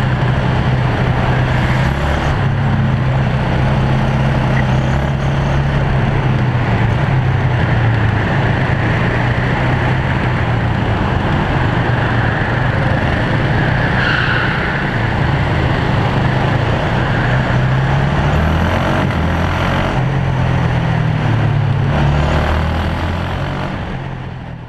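Racing kart engine running hard, its pitch shifting up and down with the throttle and gear changes. The sound fades out at the very end.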